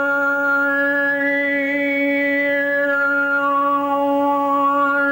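A woman chanting a single long held note, the pitch staying the same while she shapes the sound inside it. Different overtones ring out above the note in turn, first a higher one, then a lower one.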